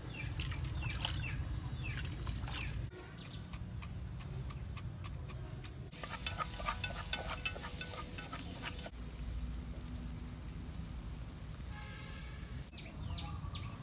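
Natural sound of outdoor cooking, cut into short pieces: birds chirping over a low rumble, then a quick run of sharp clicks, then a pot sizzling and crackling as the food is stirred with a wooden spoon, then birds chirping again near the end.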